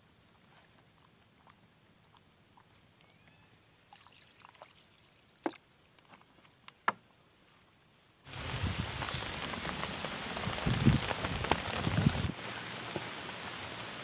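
A few faint knocks in near quiet, then heavy rain comes in suddenly about eight seconds in. It has low rumbling for a few seconds before settling into a steady downpour.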